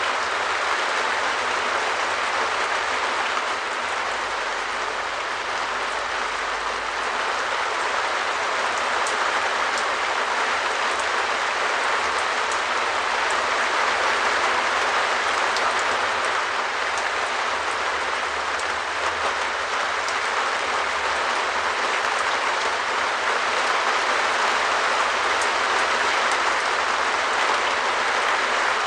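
Rain falling steadily on a shed roof: a dense, even patter that neither builds nor fades.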